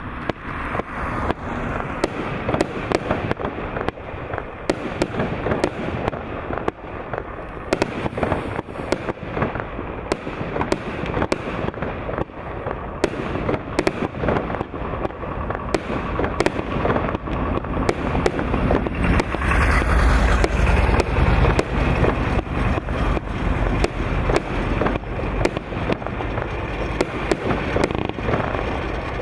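A firework cake firing shot after shot: a rapid, unbroken run of launch thumps and burst bangs, several a second, with a louder, deeper rumbling stretch about twenty seconds in.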